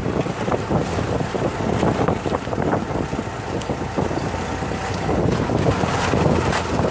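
Steady rumble and rattling of a moving vehicle's ride along a rough road, with wind buffeting the microphone.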